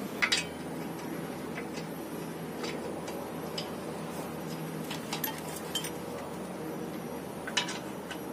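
Light metallic clicks and clinks, one every second or so, as wheel nuts are fitted by hand onto the studs of a car's front wheel. The sharpest is a quick double click just at the start, over a steady low background hum.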